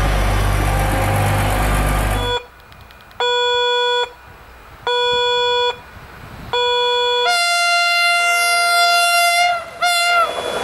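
A diesel engine idles with a steady low rumble that cuts off about two seconds in. Then the horn of an approaching Pesa Link diesel railcar sounds three short blasts on one note, a longer blast on a higher note, and a final short blast.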